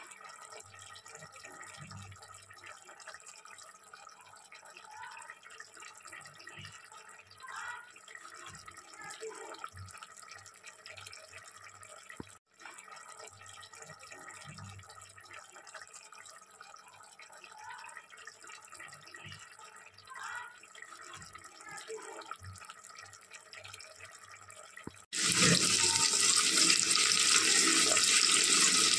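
A faint steady hiss, then about 25 seconds in a loud, steady sizzle starts suddenly: sliced onions frying in hot oil in an aluminium pot.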